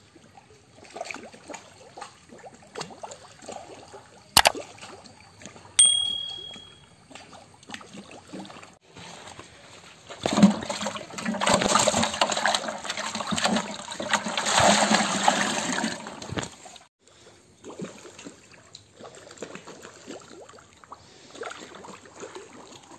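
Water splashing and sloshing as a harvested fish thrashes in a plastic bucket of water, loudest for about six seconds in the middle. Before that come two sharp clicks, the second followed by a short ding.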